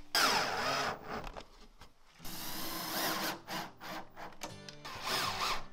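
Festool cordless drill driving screws through a metal ball-bearing drawer slide into plywood, in about three short bursts.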